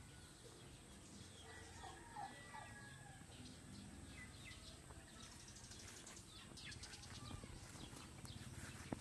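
Faint outdoor ambience with scattered small bird chirps and a few soft ticks later on.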